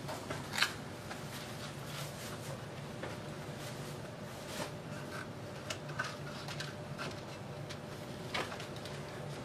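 Faint handling noises: scattered small clicks and rustles of a leaf and flower stems being pressed into a metal vase, over a steady low room hum.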